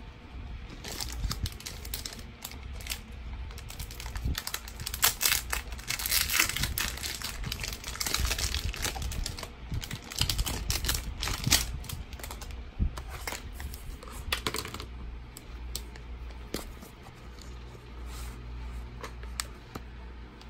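Handling of a spiral notebook with a kraft card cover: irregular paper rustles and small clicks, busiest in the middle and thinning out near the end.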